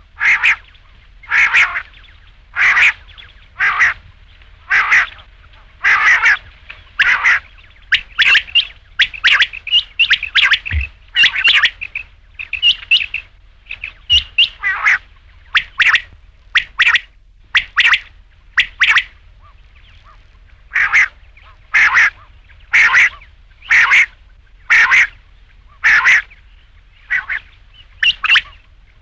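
Rain quail calling: short, sharp calls repeated about once a second. They come faster and overlap for several seconds in the middle, then pause for about two seconds before resuming.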